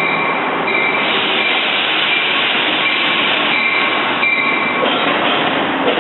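A train running past on the rails: a loud, steady rumble and rush of wheels on track, with a faint high metallic squeal that comes and goes several times.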